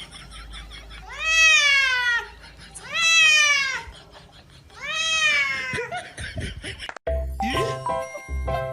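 A cat meowing three times, each a drawn-out meow about a second long that rises and then falls in pitch. Music with a bass beat cuts in suddenly near the end.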